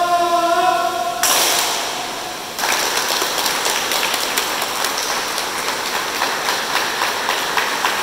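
A man's long drawn-out call opening an ippon-jime, then a group's single hand clap in unison, ringing and fading in a large tiled bath hall. About two and a half seconds in, the group breaks into applause that carries on.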